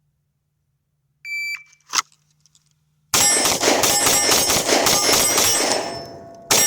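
A shot-timer start beep about a second in, then a sharp click. From about three seconds in comes a rapid string of 9mm pistol shots from a Glock 19, several a second, loud and ringing into each other. They pause briefly near the end, then start again.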